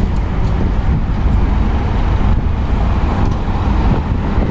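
A car on the move: a steady low rumble of engine and road noise.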